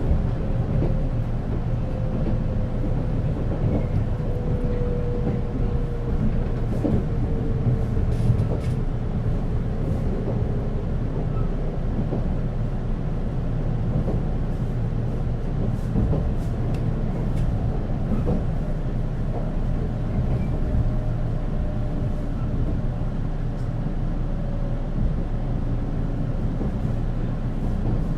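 Running noise inside the motor car of a JR 485-series electric train under way: a steady low rumble of wheels on rail with traction motor and gear noise. A faint whine slowly falls in pitch over the first dozen seconds, and a few light clicks sound along the way.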